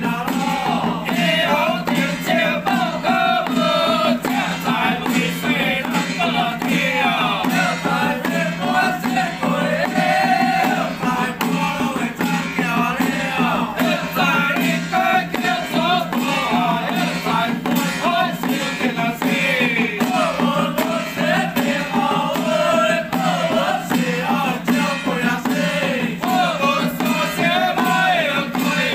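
Xiaofa ritual troupe of men chanting a Taoist incantation in unison, sung to a gliding melody, with a steady low tone underneath.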